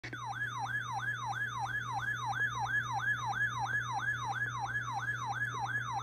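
A weather radio's built-in alert siren sounding, a pitch that rises sharply and falls again about three times a second, over a low steady hum. It signals that the radio has received a NOAA Weather Radio Required Weekly Test.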